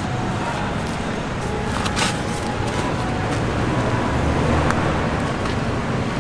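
Steady low rumble of motor-vehicle traffic, with a brief sharp knock about two seconds in.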